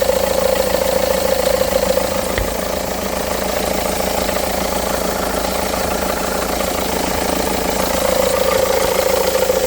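A 2009 Seat Leon's engine idling, with a steady mid-pitched drone from the front pulley area that fades a few seconds in and comes back near the end. The mechanic takes the noise for the worn rubber of the crankshaft pulley's damper (harmonic balancer).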